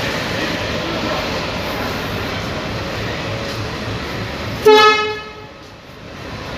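A train horn sounds one short, loud toot about four and a half seconds in, fading quickly, over a steady rushing background noise.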